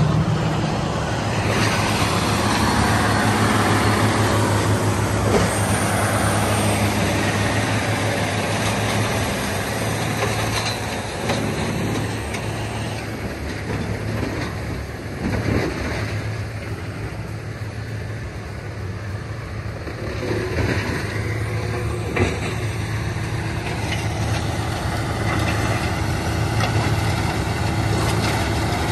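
Tracked horizontal wood grinder running under load, its diesel engine humming steadily while it grinds land-clearing debris into mulch, with a few sharp knocks from material going through.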